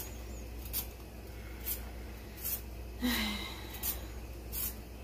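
Kitchen knife slicing rounds off a raw sweet potato held in the hand: a short crisp cut about once a second.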